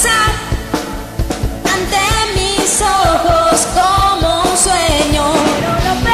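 Live pop-rock band music: drums on a steady beat with a cymbal crash at the start, under a sung vocal melody.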